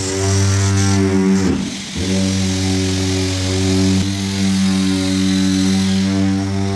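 An electric power tool running with a steady, low-pitched buzz. It dips briefly about one and a half seconds in, then runs on.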